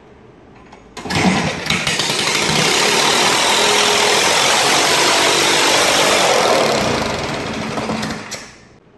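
3.5 hp Briggs & Stratton single-cylinder engine starting about a second in and running loudly and steadily. It then winds down and stops shortly before the end.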